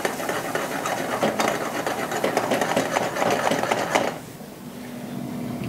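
Diced apples sizzling and crackling in a frying pan of bubbling butter, sugar and apple wine. The sizzle cuts off suddenly about four seconds in, leaving a quieter low steady hum.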